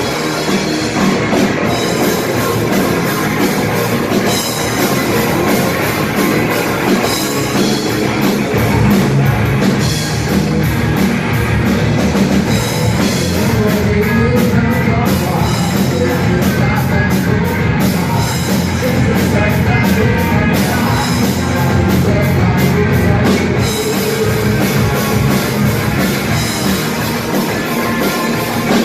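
Rock band playing a loud, heavy song with a driving drum kit beat.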